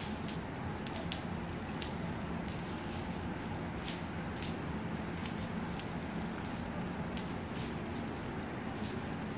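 Scattered raindrops ticking irregularly on a nearby surface, one to three a second, over a steady low background hum.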